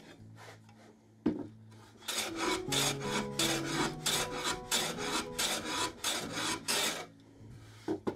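Handsaw cutting a plywood panel in quick back-and-forth strokes, about four a second, over some five seconds. A single knock comes just after a second in, and soft background music plays underneath.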